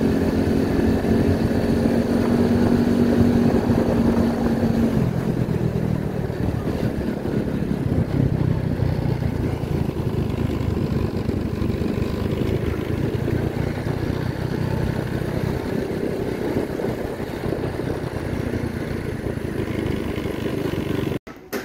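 Motorcycle engine running while riding along a road. Its note drops to a lower pitch about five seconds in and then holds steady, until it cuts off abruptly just before the end.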